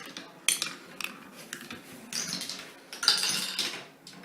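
Marbles running down a wooden marble run: sharp separate clacks as they drop onto the track, then two longer rattling rolls about two and three seconds in.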